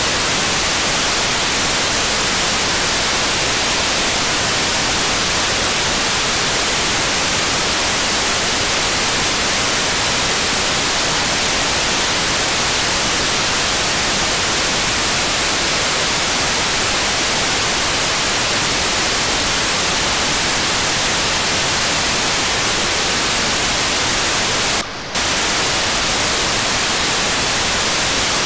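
Steady FM receiver hiss from an RTL-SDR tuned to the D-Star-ONE Sparrow CubeSat's 435.7 MHz downlink. Near the end the hiss briefly drops for a fraction of a second as a short 4800-baud GMSK telemetry packet from the satellite comes through.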